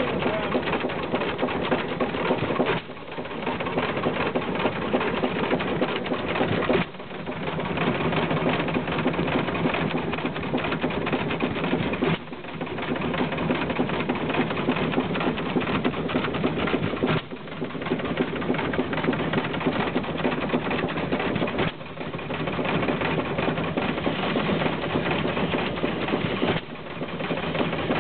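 Bradford open-crank hit-and-miss stationary engine running, a steady rapid clatter. About every four to five seconds it drops off sharply for a moment, then builds back up.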